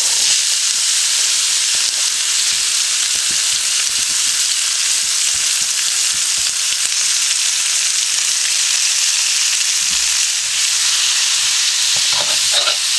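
Sliced onions sizzling in hot oil in a cast iron wok, a loud steady hiss. Near the end a metal utensil stirs them around the wok with a few knocks and scrapes.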